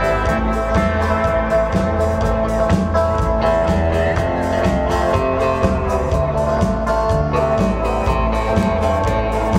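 Live instrumental 1960s-style guitar band: an electric lead guitar plays the melody with long held notes over bass guitar and a steady drum-kit beat.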